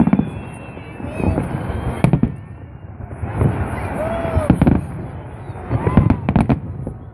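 Fireworks salute: a string of aerial shell bursts booming and cracking every second or so, with short whistling tones from rising shells between the bangs.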